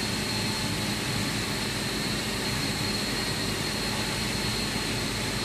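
Steady drone of running industrial machinery: a broad rushing noise with a thin, constant high whine and a low hum, unchanging throughout.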